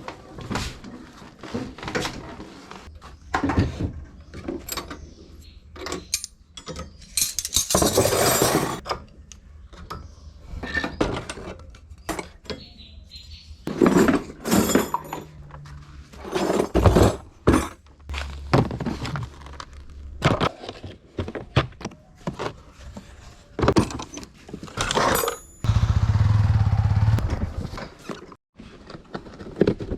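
Workshop clatter: metal parts and tools knocking, clinking and scraping, one irregular knock after another. A low mechanical hum runs underneath for much of the first two-thirds, and a louder low motor hum comes in briefly near the end.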